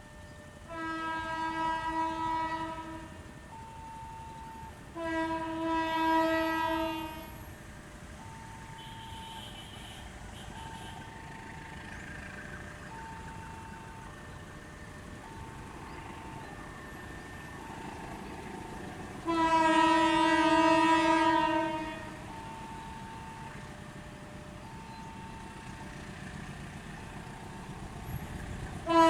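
Indonesian railway locomotive horn sounding three long blasts of about two and a half seconds each, the long horn signal known on Indonesian railways as Semboyan 35, each blast louder than the one before, with another starting at the very end. Between the blasts a fainter short tone repeats about every second and a half.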